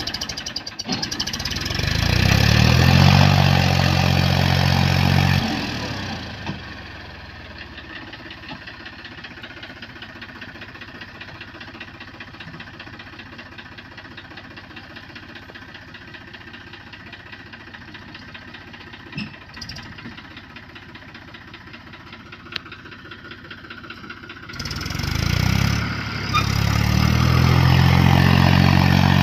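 Farm tractor's diesel engine being revved up loudly about two seconds in, then running much more quietly at low revs for most of the time, and revving up loudly again near the end as the tractor pushes along a rough dirt track.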